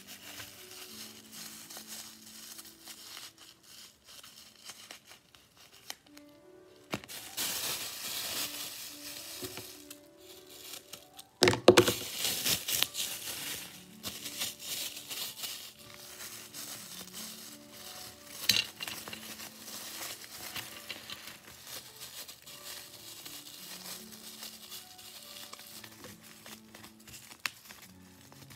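Paper crinkling and rustling as a paper squishy is handled and stuffed, in bursts, loudest about a third of the way in. A piano plays softly in the background.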